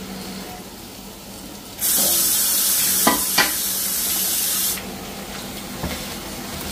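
Onion pakoras deep-frying in a wok of hot oil: a steady sizzle that turns loud about two seconds in and drops back abruptly about three seconds later. Two light clinks come in the middle.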